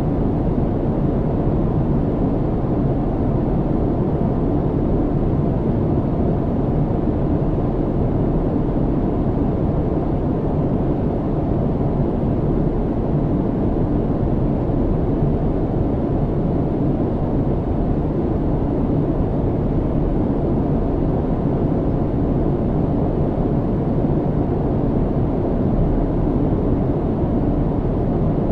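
Steady low rumble of a jet airliner's cabin in cruise flight, engine and airflow noise with a faint steady hum above it.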